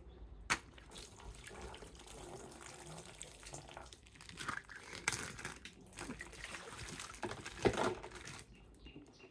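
Water splashing and trickling as a plastic toy figure is washed, with scattered small clicks and knocks of plastic being handled.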